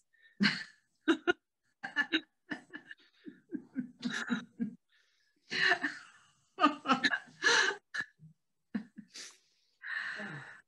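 Two women laughing: breathy chuckles and short bursts of laughter, on and off throughout.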